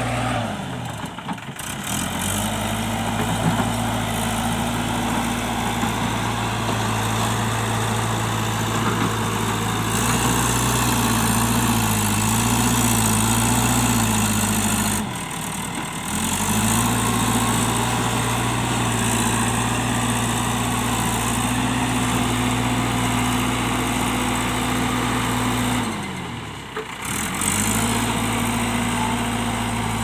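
JCB backhoe loader's diesel engine running steadily at working speed, its pitch wavering for a few seconds near the middle as the front bucket pushes soil. The engine sound drops away briefly three times and comes back.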